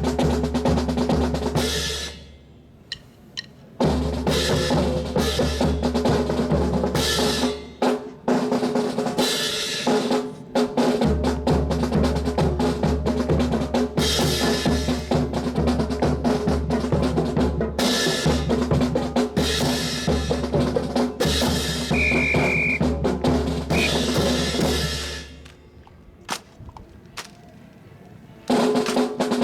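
Marching drum cadence on snare and bass drums. It drops out briefly about two seconds in, and again for about three seconds near the end, when only a few sharp clacks are heard.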